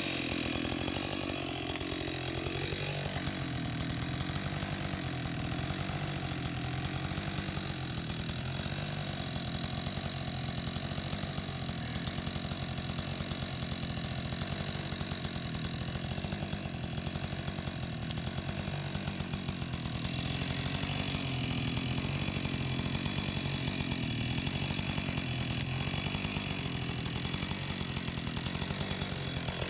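Husqvarna 576 XP two-stroke chainsaw running steadily at an even speed.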